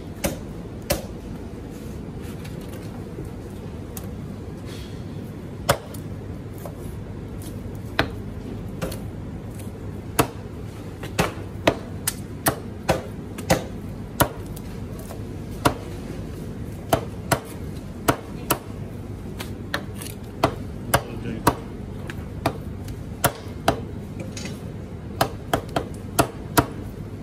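Large butcher's knife chopping raw chicken into pieces on a wooden butcher block: irregular sharp knocks, coming faster in the second half, over a steady background hum.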